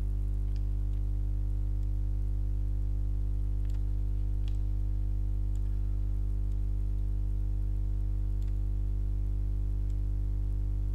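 Steady low electrical hum on the recording, with a few faint scattered clicks from a computer mouse as path nodes are placed.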